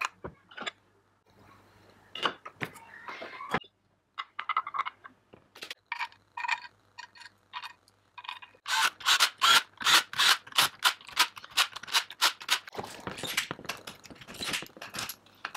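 Metal clicks, knocks and clatter of small engine parts and hand tools as a two-stroke kart engine is assembled on a steel bench. Scattered at first, then a fast run of sharp clicks, about three a second, from about eight and a half seconds in.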